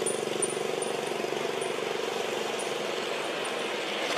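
A steady engine drone with a fast even pulse, running without a break, with a few faint short high chirps over it.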